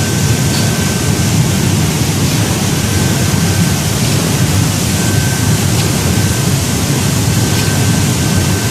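Industrial bubble-type vegetable washing machine running: a steady rush of churning, bubbling water over a low machine hum, with a faint thin whine that comes and goes.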